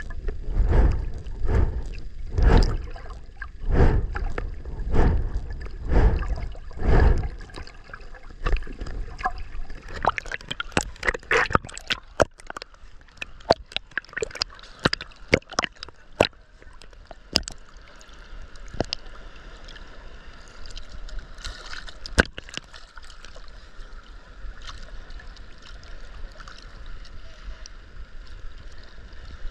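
Ocean water heard through a camera that is mostly submerged while swimming. First come low, rhythmic water thumps about once a second with the swimming strokes, then a crackle of bubbles and gurgling that settles into a fainter steady rush with scattered pops.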